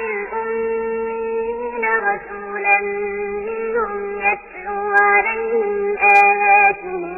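Melodic Quran recitation in tajweed style: a single voice draws out a long vowel, holding one note for about two seconds, then moving through several more held notes with short glides between them.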